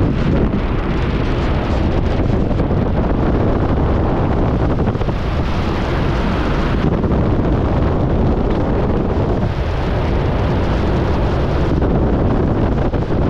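Steady, loud rush of freefall wind blasting across the camera's microphone during a skydive.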